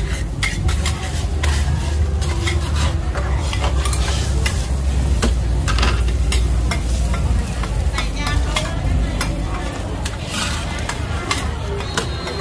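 Green-mussel pancakes (hoi tod) sizzling in oil on a large flat griddle, with a metal spatula repeatedly scraping and clacking against the griddle as the pancakes are turned. A steady low rumble runs underneath.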